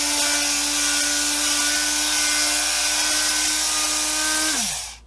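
Small handheld electric sander running with a steady whine, then switched off about four and a half seconds in, its pitch falling as the motor spins down.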